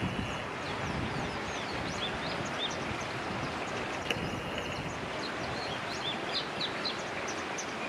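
Black-backed white wagtail calling in a string of short, high chirps and twitters, scattered throughout, over a steady rushing background noise.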